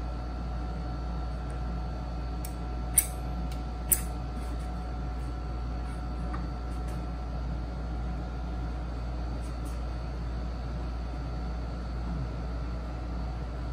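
Steady low background hum, like a fan or appliance running, with a few faint ticks and two sharp taps about three and four seconds in.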